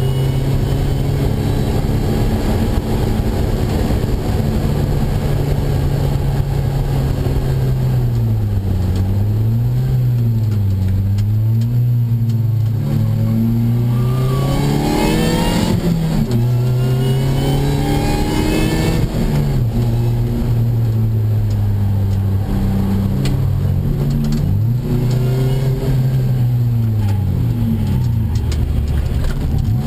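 Opel Speedster's mid-mounted four-cylinder engine driven hard, heard from inside the cabin: the revs hold steady for stretches, then fall and climb again several times, most often in the second half.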